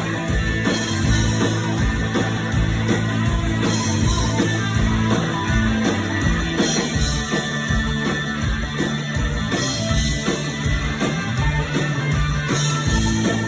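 Live rock band playing: electric guitars over bass and drums with a steady beat.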